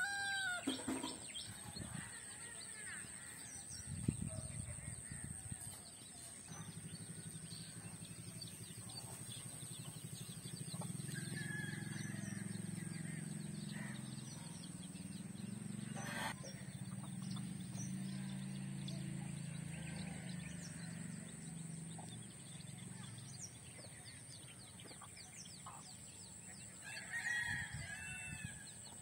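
Free-ranging chickens: a rooster crows once at the start and again near the end, with scattered faint chirps between. Through the middle a low drone rises and fades away, and a thin steady high-pitched tone runs underneath throughout.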